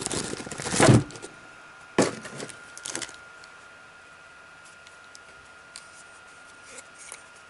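A Sony Zeiss 24-70 mm lens being slid out of its padded soft pouch by hand: rustling and scraping in the first second, a sharp knock about two seconds in and a smaller one about a second later, then only a few faint handling clicks.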